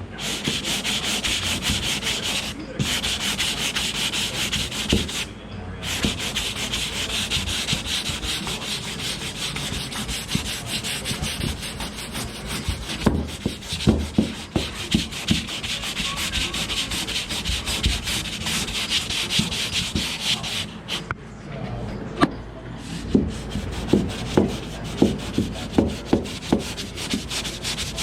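Sanding: a steady abrasive rubbing that pauses briefly twice near the start, with runs of sharp knocks or taps about halfway through and again near the end.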